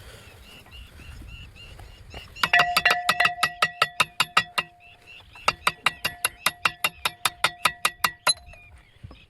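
Rapid metal-on-metal tapping, about five or six ringing strikes a second, in two runs with a short pause between them.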